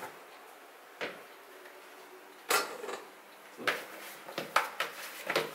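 Plastic lid taken off a plastic mixing bowl of dough and the bowl handled. There is a light knock about a second in and a louder knock at about two and a half seconds, then a string of small knocks and scrapes.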